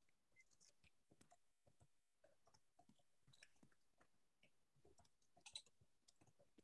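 Near silence, with faint scattered clicks at irregular intervals.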